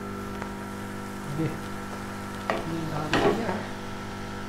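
Daal mash being stirred and tossed with a spatula in a frying pan, sizzling as it fries, with louder stirring about three seconds in. A steady hum runs underneath.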